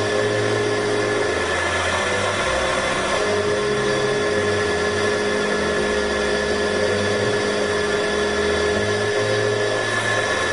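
CNC milling machine spindle running steadily as a small end mill cuts between the throws of a model six-cylinder crankshaft turned on a rotary axis. There is a constant high whine, with a low hum underneath that steps up and down in pitch every second or so as the machine's axes move.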